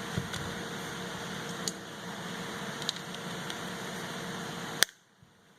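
Steady background hiss with a few light clicks and taps of hands working at a ratchet stuck in its plastic packaging. A sharp click near the end, then the sound drops almost to silence.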